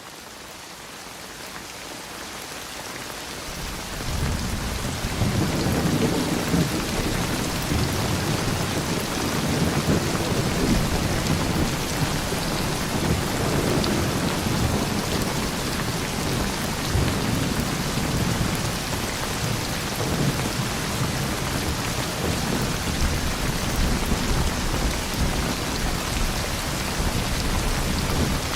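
Steady, heavy rain with low rumbling thunder underneath, fading in over the first four seconds and then holding even.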